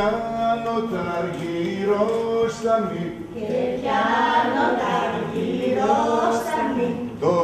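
Unaccompanied group singing of a Tilos folk dance song, several voices holding and bending long notes together.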